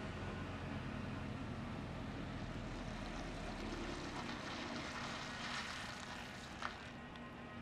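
Scania R500 hook-lift truck's V8 diesel engine running as the loaded truck drives slowly away. Its low hum fades about halfway through, giving way to a broader rushing noise, with one sharp click near the end.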